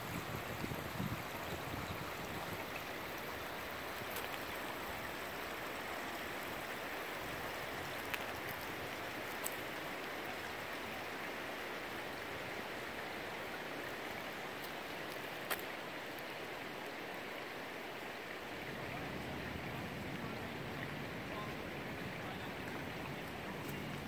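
Small rocky creek running over stones, a steady rush of water, with a few brief sharp clicks.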